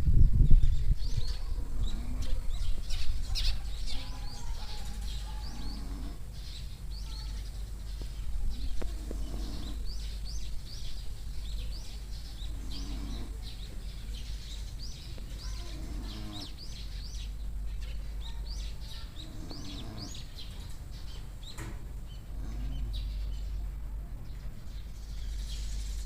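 A sleeping pig snoring, its low snores recurring every few seconds, while small birds chirp constantly.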